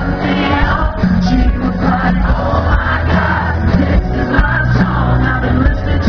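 Live country band playing with a male lead singer, heard loud from the crowd.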